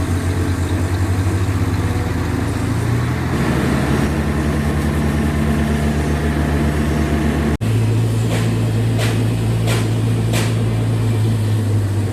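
Heavy diesel engine running with a steady, pulsing low drone. About seven and a half seconds in the sound breaks off abruptly and resumes as a steadier, deeper drone with a few sharp ticks over it.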